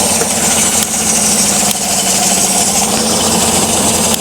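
Chevrolet Silverado 5.3-litre V8 idling steadily under the open hood, with a misfire that the scanner logs in cylinder 6.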